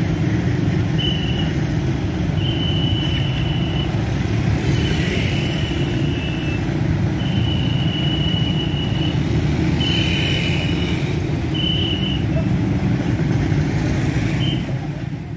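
Dense motorcycle and small-vehicle traffic: many engines idling and pulling away together in a steady rumble. A high, steady tone sounds over it in about seven separate blasts, some short and some over a second long.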